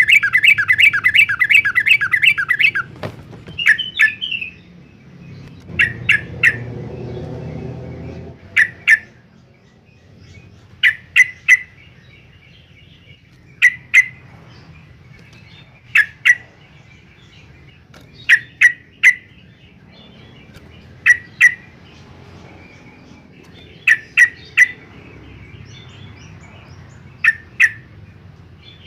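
Yellow-vented bulbul calling: a fast chattering run of notes, about six a second, for the first couple of seconds, then short sharp calls in groups of two or three every two to three seconds.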